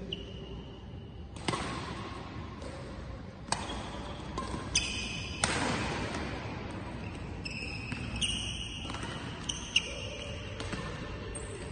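Badminton rally: rackets strike the shuttlecock with several sharp cracks a second or two apart, and shoes squeak on the court floor as the players move.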